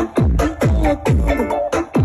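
Electronic dance music with a deep kick drum whose pitch drops sharply on each hit, a little over twice a second, under sustained synth tones.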